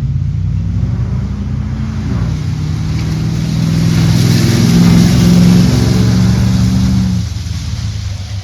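Exhaust of a 5.3L Chevy V8 through Cherry Bomb Salute mufflers under throttle: the note climbs in pitch and grows louder over the first five seconds or so, then drops off sharply about seven seconds in as the throttle comes off.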